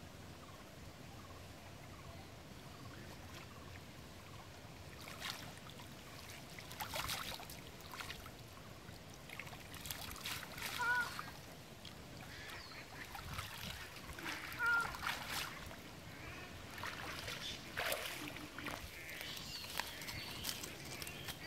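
Pond water splashing and sloshing as a cast net is hauled up out of the water and a man wades out onto the bank, with a few short animal calls, the loudest sounds near the middle.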